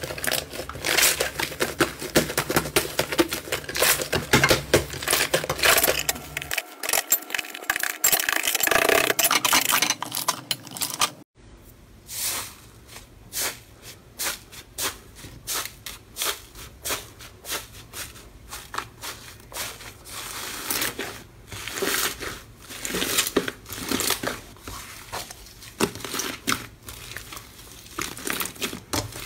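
Hands kneading and squeezing slime: dense, crunchy squishing and crackling for about the first 11 seconds, then after a sudden break, quieter, sparser crackles and pops as hands press into an orange iceberg slime with a dried crust and squeeze it.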